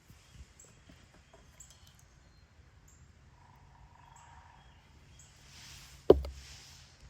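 A single sharp knock about six seconds in, over faint short high chirps.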